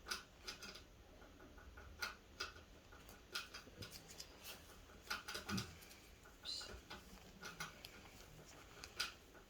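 Faint, irregular clicks and snips of wire cutters working on fine chicken wire, several a second at times.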